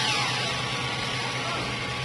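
Factory machinery running: a constant hiss with a steady low hum beneath it, and a falling whine in the first half second.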